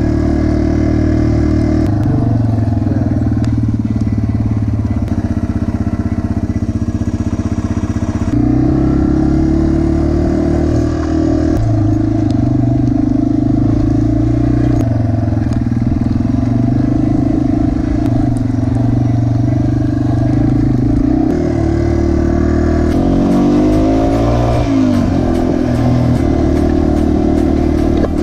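Yamaha TW200's single-cylinder engine running under way on a dirt track, its note changing in steps with throttle and gear changes, and rising and falling a few times about three-quarters through.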